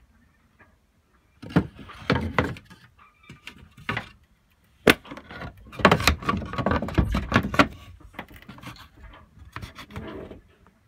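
Irregular wooden knocks, clatter and rubbing, as of wooden cabin panels and fittings being handled. There is a sharp knock about five seconds in, then a busier run of clattering for a couple of seconds before it settles into light rubbing.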